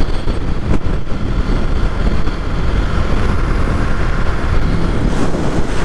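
2023 Kawasaki Ninja 650 parallel-twin motorcycle ridden at highway speed, heard from the rider: a steady, loud rush of wind on the microphone over the engine running.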